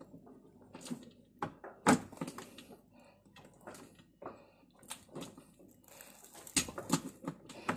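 Phillips screwdriver turning and seating the centre screw in a top-loading washing machine's pulsator hub: a string of irregular clicks and knocks, the sharpest about two seconds in.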